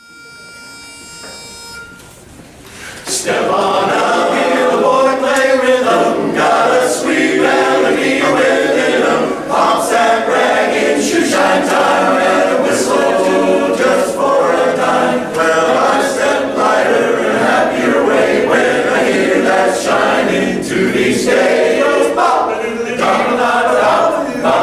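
A single steady note sounds for about two seconds, then a men's barbershop chorus starts singing a cappella in close four-part harmony, loudly and without a break.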